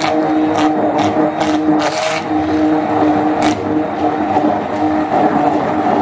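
Hand-held electric stick blender running steadily through thick pumpkin cake batter as flour is worked in, its motor giving a steady whine. A few sharp clicks come mostly in the first two seconds.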